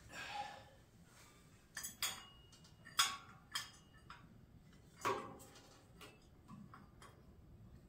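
Several separate sharp metallic clicks and knocks, about half a dozen, the loudest about three and five seconds in, as metal parts and the welding gun are handled against a steel implement frame.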